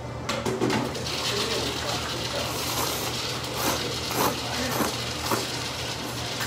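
Noodles being slurped from a bowl, a long hissing slurp with a few sharper sucks in it, over a steady low hum.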